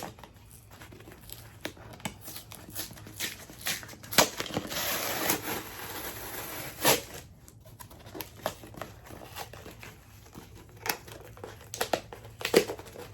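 A cardboard shipping box being opened by hand: packaging rustling and crinkling, with scattered knocks of cardboard. About five to seven seconds in comes a longer, louder stretch of rustling and tearing.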